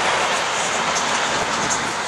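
First Great Western High Speed Train (InterCity 125) coaches passing at speed: a steady, loud rush of wheels on rail and air.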